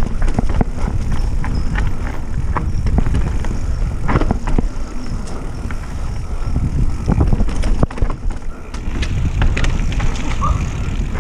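Mountain bike riding fast down a rooty dirt trail: a steady low rumble of tyres and motion, with frequent sharp knocks and rattles as the bike hits roots and bumps.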